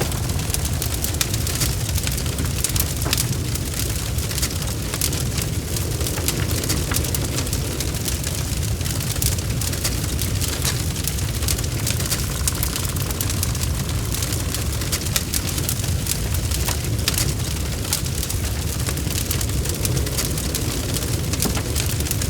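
Wood fire burning in a fireplace: a steady low rumble with frequent small crackles and pops throughout.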